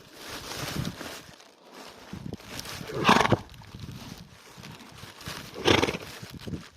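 An animal grazing on grass gives two short, loud blows through the nose, about three seconds in and again near six seconds; the owner can't say whether they are snorts or sneezes. Softer rustling and munching lies between the blows.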